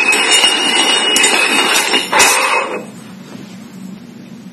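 Small stainless-steel cups being slid and shuffled across a hard tabletop: loud metallic scraping that stops about two and a half seconds in.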